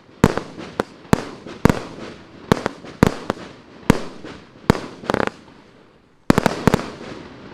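A 60-shot, 1-inch (25 mm) firework cake firing: a string of sharp bangs, one or two a second, each trailing off, then a short lull about six seconds in and a rapid cluster of bangs near the end.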